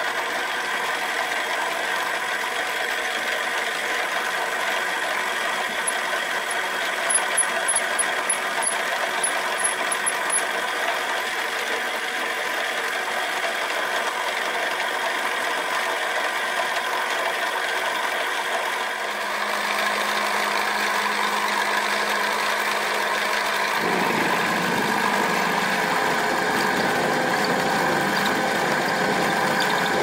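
Milling machine running an end mill through an aluminum block, a steady machine whine with many tones. The sound grows fuller and deeper about two-thirds of the way through.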